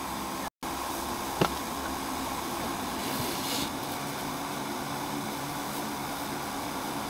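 Steady hiss of background noise with a single sharp knock about a second and a half in, a paving stone hitting the inflated hail cover. A very short drop to silence comes just after the start.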